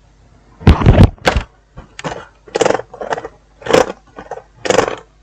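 Repeated clattering and rattling of small hard objects being handled: a loud burst of knocks about a second in, then about six shorter rattles roughly half a second apart.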